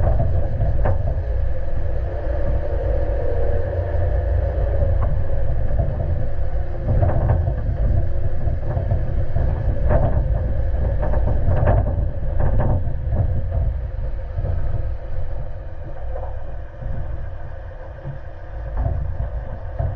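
Suzuki Jimny JB74 driving off road on a rough track: a steady rumble of engine and tyres, with a handful of short knocks and rattles from the bodywork.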